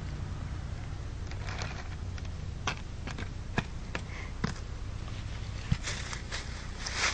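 Dry fallen leaves rustling and crackling as an animal roots through them, with scattered sharp crackles and a louder patch of rustling near the end, over a low steady hum.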